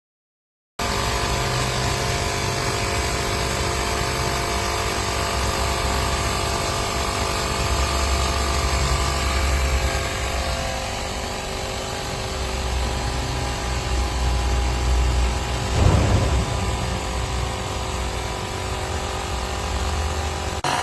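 Powools cordless tire inflator's small compressor running steadily with a buzzing, even drone, starting suddenly about a second in. A brief knock stands out about sixteen seconds in.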